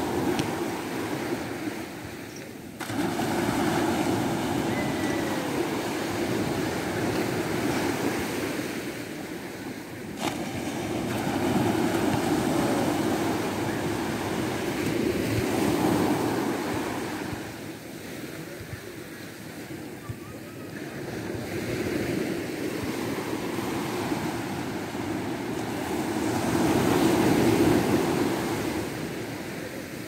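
Small waves breaking and washing up on a sandy beach: a steady rush of surf that swells and eases every several seconds.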